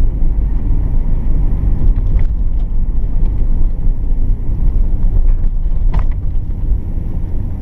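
Nissan Skyline R32 GT-R's twin-turbo RB26DETT straight-six running under way, a steady low rumble mixed with road noise as heard inside the cabin. The engine is still warming up, with the temperature gauge at about a quarter. There is a single sharp click about six seconds in.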